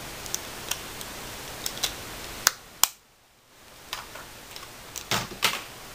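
Scattered light clicks and taps of small plastic makeup packaging being handled, over a steady background hiss that cuts out briefly about three seconds in.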